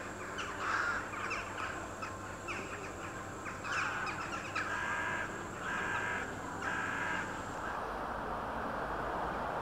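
Crows cawing repeatedly, a run of short calls that stops about seven seconds in, over a steady background rumble that grows louder near the end.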